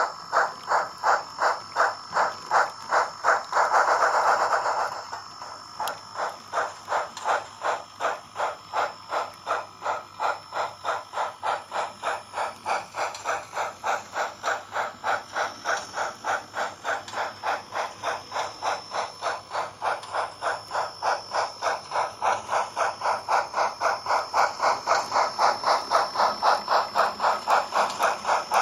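Sound-equipped H0n3 model of a Colorado & Southern 2-6-0 Mogul steam locomotive chuffing steadily at about two to three beats a second as it hauls its train. A louder burst of hiss lasts about a second and a half a little over three seconds in.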